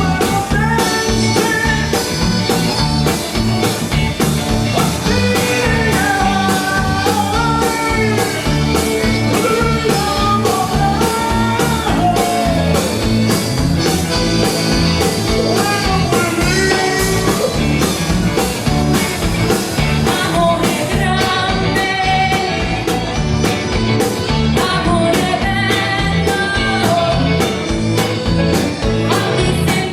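A band playing an upbeat rock-and-roll number with guitar over a steady, driving beat, and a melody line that slides between notes.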